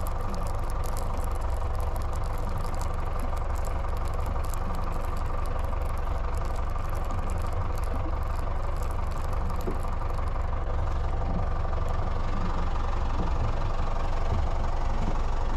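Boat outboard motor idling steadily.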